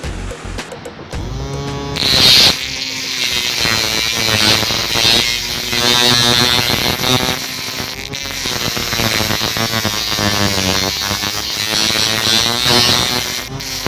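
Small DC motor of a homemade mini grinder running with a buzzing whine. It picks up about two seconds in, then its pitch wavers up and down repeatedly over a steady high hiss.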